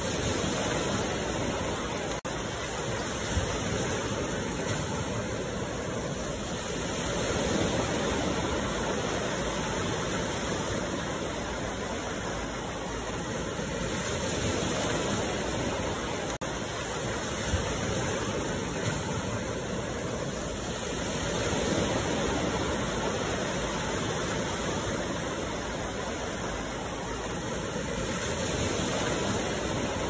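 Small ocean waves breaking and washing up a sandy beach: a steady rush of surf that swells and eases every several seconds.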